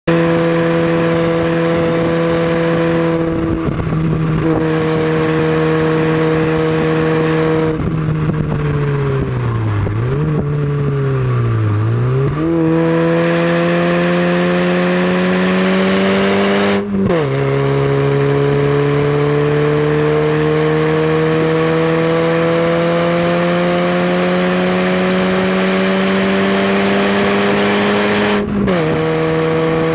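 Fiat barchetta's 1.8-litre four-cylinder engine heard from the open cockpit under hard driving, with wind rushing past. The revs fall and pick up twice around ten seconds in, then climb steadily, dropping sharply at upshifts about seventeen seconds in and again near the end.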